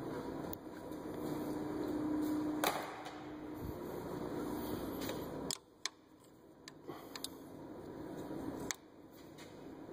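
Faint scattered clicks and clinks of a wrench being handled and fitted onto the belt tensioner pulley bolt. A low steady hum runs through the first half.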